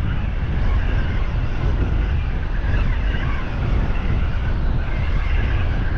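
Strong wind buffeting the microphone: a steady, gusty low rumble with no let-up.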